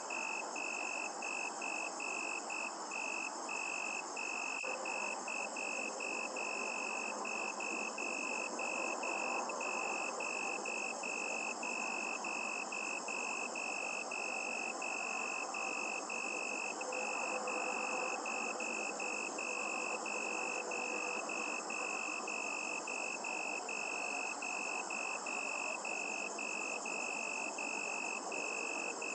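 Crickets chirping at night: a high, even chirp repeating about three times a second without pause, over a steady background hiss.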